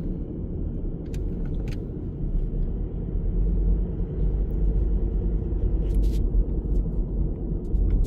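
Car driving slowly, heard from inside the cabin: a steady low rumble of engine and tyres on the road, with a few light clicks.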